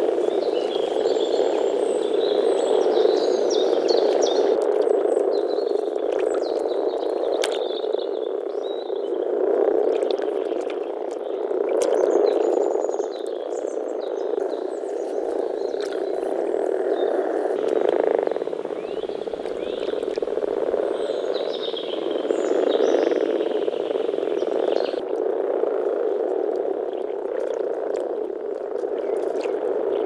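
Breeding chorus of many male European common frogs (Rana temporaria) calling at once: a continuous deep grumbling made through their vocal sacs, the males' mating call. Brief high chirps sound above it, mostly in the first half and again a little after the middle.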